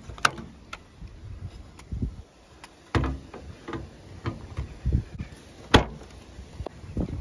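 Scattered clicks and knocks of hands handling a small reversing camera and its bracket against a car's metal trunk lid while fitting it. The sharpest knock comes about three quarters of the way through.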